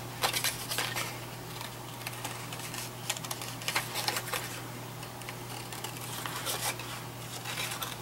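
Scissors snipping through cardstock in several short runs of quick snips with pauses between, over a low steady hum.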